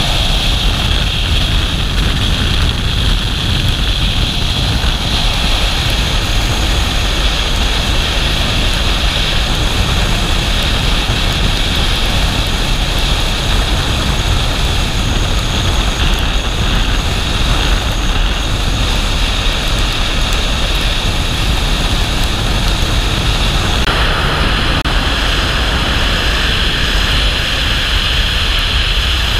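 Steady road noise of a vehicle driving at speed on a highway: a constant rush of tyres and wind with a low rumble. The hiss changes a little about 24 seconds in.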